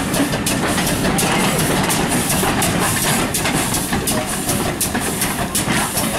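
A Great Western pannier tank steam locomotive and Pullman coaches rolling slowly past, wheels clicking and clattering over rail joints and pointwork with a steady rumble.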